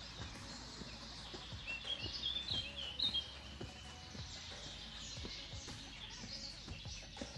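Birds chirping and singing in a cluster of quick high calls, loudest about two to three seconds in, over faint background music with a regular beat.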